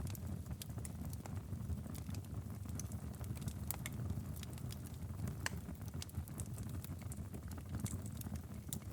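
Wood fire crackling in a fireplace: a steady low rumble with frequent, irregular sharp pops and snaps.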